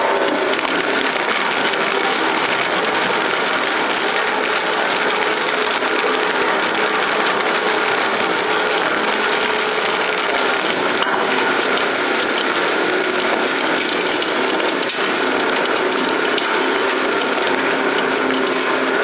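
Industrial twin-shaft shredder tearing up a mattress: its counter-rotating hooked cutter discs make a steady, unbroken grinding noise.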